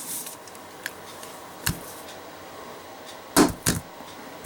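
A closed brass Zippo lighter with a steel insert dropped onto a hard surface: two sharp impacts about a third of a second apart near the end, the strike and a bounce. A smaller knock comes about two seconds earlier.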